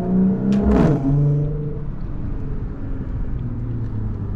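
Audi supercharged 3.0 V6 engine with an AWE Touring exhaust, driving slowly. The engine note falls about a second in and runs steady at a lower pitch, then drops again near the end.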